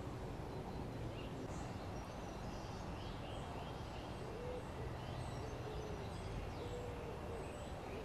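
Quiet outdoor ambience: a steady background hiss with faint, distant bird calls, small high chirps throughout and a few short, low pitched notes in the second half.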